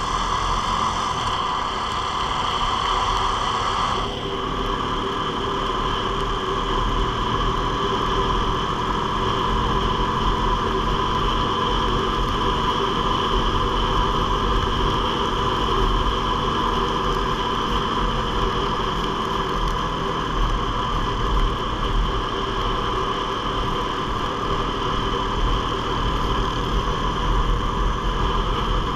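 Single-cylinder four-stroke ATV engine running steadily while riding, heard from the rider's seat with a low rumble underneath. A higher whine cuts off about four seconds in.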